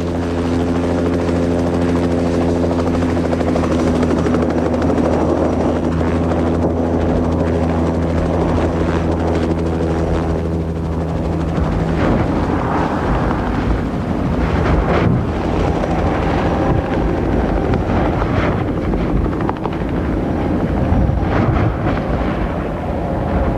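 Helicopter running in flight: a steady, even engine-and-rotor hum for about the first twelve seconds, then a rougher, noisier rush for the rest.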